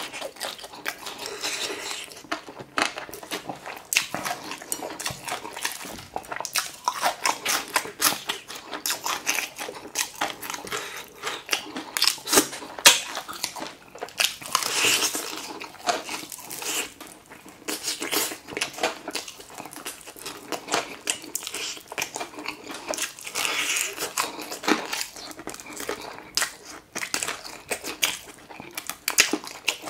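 Close-miked crunching and chewing of crispy-battered fried chicken: the crust crackles in many quick, irregular bites and chews, with wetter chewing between them.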